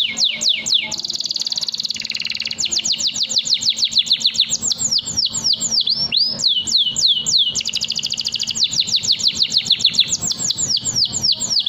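Domestic canary singing a long unbroken song: fast runs of falling whistled notes, roughly seven or eight a second, broken by buzzy rolls. A steady low hum runs underneath.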